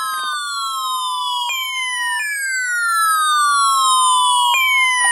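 NOAA Weather Radio warning alarm tone: a steady electronic tone near 1,000 Hz. Over it, overlapping siren-like whistles slide down in pitch again and again, a new one starting every second or two.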